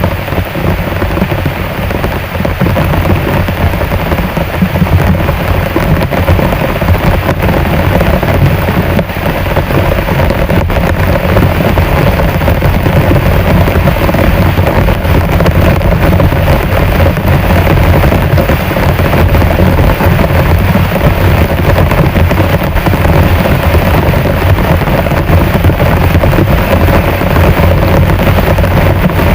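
Heavy rain pouring down steadily, loud and dense.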